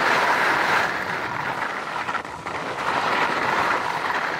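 HEAD skis sliding and scraping over a hard-frozen, icy piste: a steady scraping hiss that eases about halfway through and swells again.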